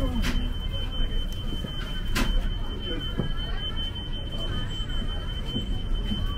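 A steady, high-pitched electronic tone from a Muni bus's onboard signal, held without a break over the low rumble of the bus's interior, with a couple of sharp knocks.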